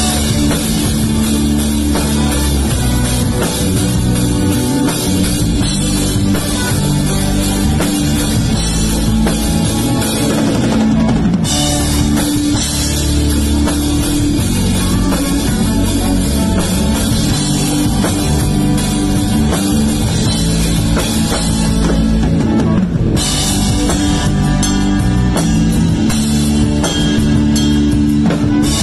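Live band rehearsing a rock-style song with the drum kit to the fore: kick drum, drums and cymbals driving the beat over guitar. The cymbals drop out for a moment about eleven seconds in.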